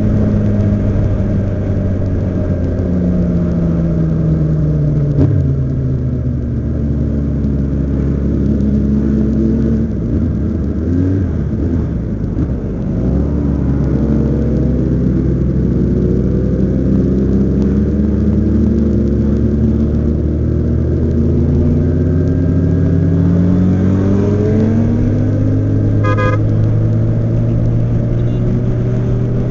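Motorcycle engine under way, its pitch climbing and falling with acceleration and gear changes, dropping as it slows about ten seconds in and then climbing again. A short beep sounds near the end.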